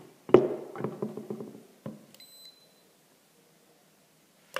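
A steel sheet is set down on a tabletop with a knock and a short clatter. About two seconds in, a handheld infrared thermometer gives one short high beep as it takes a reading. There is a sharp click near the end.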